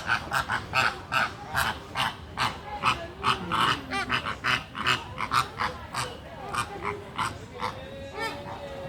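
Greater flamingo calling loudly: a quick run of short, nasal honking calls, about two or three a second, thinning out and getting weaker near the end.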